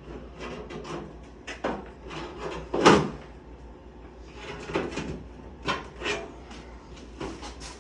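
Sheet-metal HVAC duct knocking and scraping as it is handled and worked together, with a run of separate clacks; the loudest is about three seconds in.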